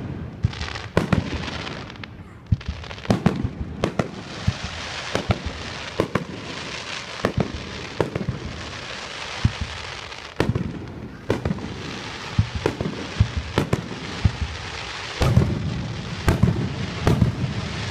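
Fireworks display: aerial shells bursting in quick, irregular succession, sharp bangs over a continuous crackling hiss, with dense volleys near the start and again near the end.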